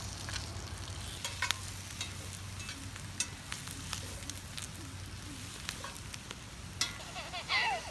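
Campfire crackling: a steady hiss with scattered sharp pops and snaps.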